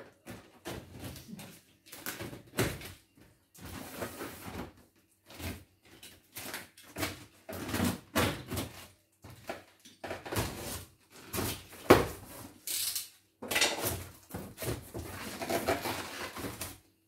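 A cardboard box being unpacked by hand: paper and cardboard rustling, scraping and being pulled about, and styrofoam packing handled, in irregular bursts with one sharp knock about twelve seconds in.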